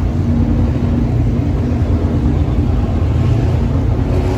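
Vintage racing car engine running at steady revs, a low, even note that neither rises nor falls.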